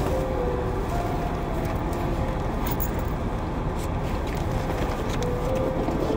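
Steady car road noise heard from inside a moving car, with a faint melody over it.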